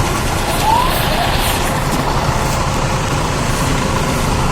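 Steady road-traffic noise from vehicles passing on a busy street, with a couple of short rising chirps about a second in.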